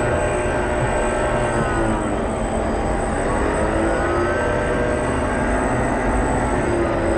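Drive motors and propellers of a 1:40 radio-controlled model catamaran ferry (Fjellstrand Flying Cat), heard from a camera on board. They make a steady running whine of several tones that rise and fall in pitch, over a constant low rumble and a thin high steady tone.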